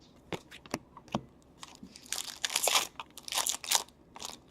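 Foil hockey-card pack wrapper being torn open and crinkled, in two bursts, after a few light clicks of handling in the first second.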